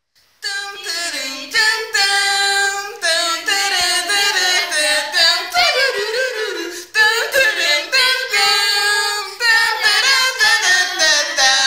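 Several women singing loudly together, their voices bending and breaking from note to note with no instrumental accompaniment.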